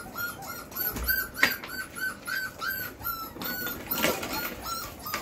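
A Belgian Malinois puppy whining in an even series of short, high squeaks, about three a second. There are two sharp knocks, about a second and a half in and near four seconds.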